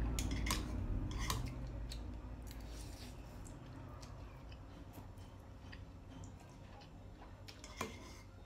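Eating ramen noodles with a metal fork from a bowl: slurping and chewing, with a few sharp clicks of the fork, about half a second in, a second later and once near the end.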